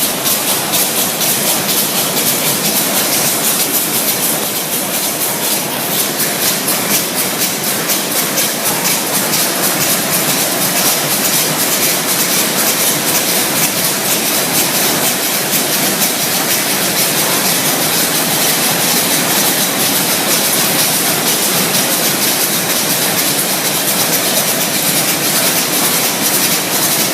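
Roll slitting machine running: a steady, loud mechanical hiss with a rapid, even ticking throughout.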